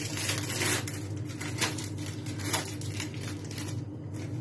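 Soft rustling and a few light scrapes from hands handling cheese slices and baking paper on a metal tray, roughly once a second, over a steady low hum.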